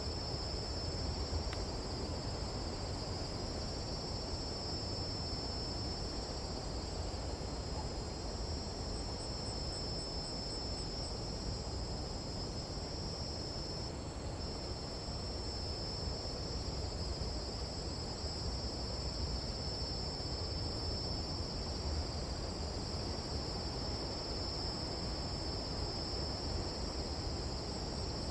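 Night-time tropical jungle insect chorus: crickets or katydids trilling steadily in two high-pitched bands without a break, over a low, even rush.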